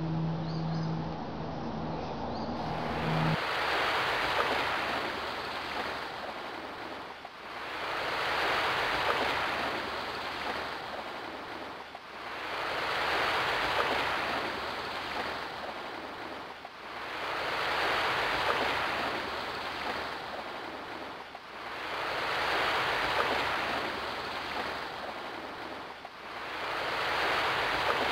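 Sea waves breaking on a sandy beach, the surf swelling and falling back about every four to five seconds. A steady low tone sounds for the first three seconds.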